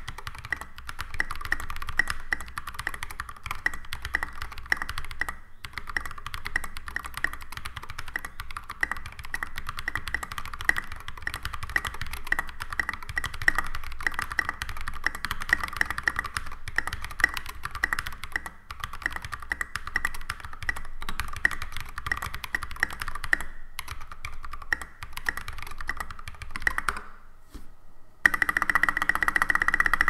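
Typing on a custom 65% mechanical keyboard with Holy Red Panda tactile switches lubed with Tribiosys 3204, a brass plate in a stacked-acrylic case, and thick SA double-shot ABS keycaps: a fast, continuous stream of key clacks. The typing breaks briefly about five seconds in and again near the end, then resumes as a denser, louder flurry.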